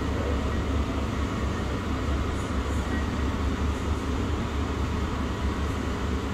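Steady low rumble of indoor background noise, with a few faint light clicks a couple of seconds in.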